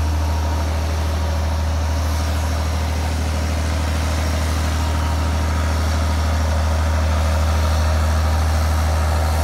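Diesel engine of a sand-barge tugboat running steadily, a deep, even engine note with no change in speed.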